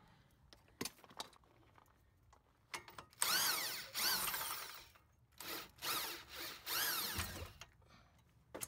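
Strut-to-steering-knuckle bolt nuts being worked off on a Dodge Grand Caravan's front suspension, giving a rasping metal scrape in two spells of about two seconds each, the first about three seconds in and the second about five and a half seconds in. There are a few light clicks before the first spell.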